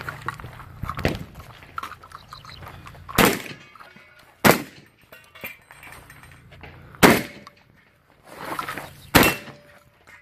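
Four shotgun shots, the gaps between them running from about one to two and a half seconds, with quieter knocks between the shots.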